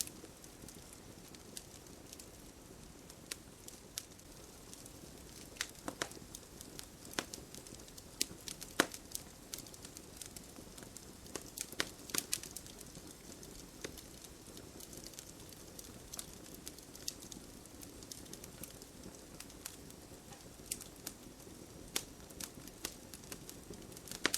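Wood campfire burning and crackling: irregular sharp pops and snaps over a steady rush of flame.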